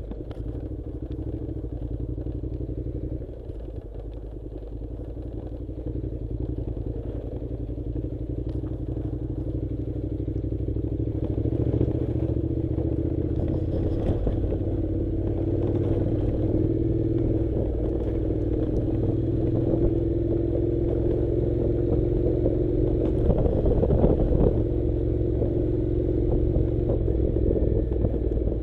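Honda NC700 motorcycle's parallel-twin engine running while riding, its tone and loudness rising gradually, with a low rumble and a few brief knocks.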